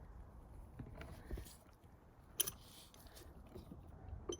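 Faint handling noises of a socket and bolt being worked into place: small knocks and rustles, with one sharp metallic click about two and a half seconds in.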